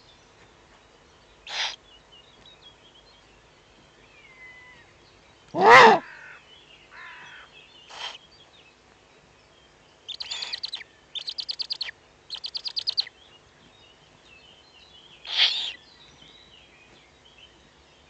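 Agitated corvids calling harshly: a few single caws, the loudest about six seconds in, then three quick rattling series of calls one after another past the middle, and one more call near the end. These are angry calls, typical of corvids mobbing an eagle-owl.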